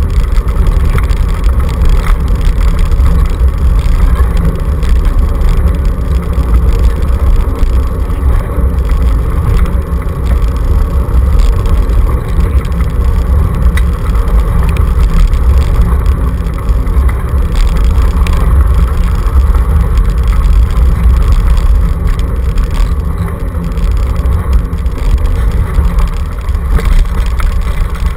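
Dog scooter rolling fast over a gravel road, a loud steady rumble of its tyres and frame carried through the handlebar-mounted camera.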